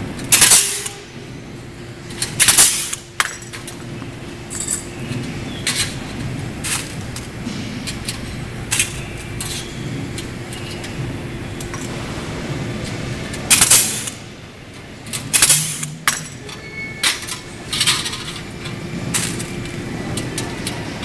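Pneumatic blind-rivet gun setting rivets through a roof ventilator's steel ring and bracket: four loud, sharp, hissing pops, two near the start and two about two-thirds through. Fainter clicks and metal clinks fall between them, over a steady low hum.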